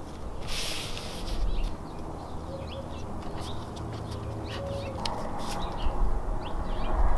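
Masking tape being pulled off the roll, torn and pressed down: a short hissing rip about half a second in, then scattered small squeaks and ticks.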